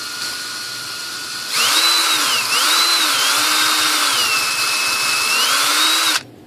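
Electric drill boring through a small block of wood, its motor whine dipping and recovering in pitch several times as the bit labours. The builder blames either very hard wood or a poor drill bit. The drilling comes in loud about a second and a half in and stops abruptly near the end.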